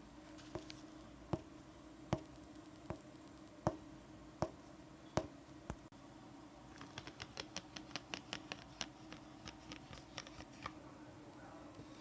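Sharp taps, evenly spaced at about one every three-quarters of a second for the first half, then a quicker run of lighter clicks, several a second, over a steady low hum.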